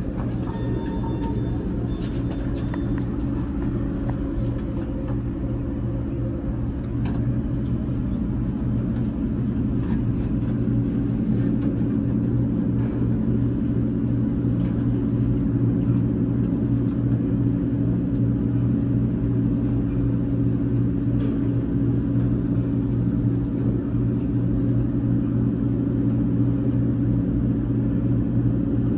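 US Elevator traction elevator travelling down its shaft, heard from inside the cab: a steady low hum with rumble that grows slightly louder as it goes.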